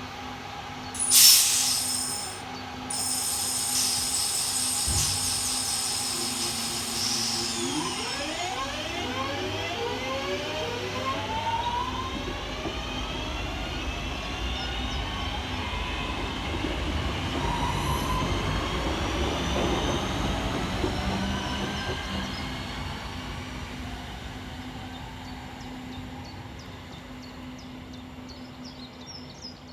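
Northern Class 323 electric multiple unit pulling out of the station, with a short loud blast about a second in. Its traction motors then whine, rising in pitch as it accelerates away, and the sound slowly fades near the end.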